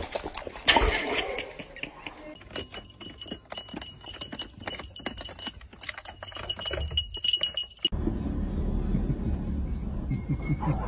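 Rapid metallic clinking and tapping of goats' hooves on a car's roof, with a faint steady high ringing over it. About eight seconds in this cuts off, and a steady low rumble takes over, heard from inside a car.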